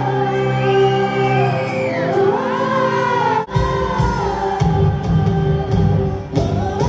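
Live amplified pop music: a woman singing into a microphone over her band. About halfway there is a brief break, after which heavy bass and drums come to the fore.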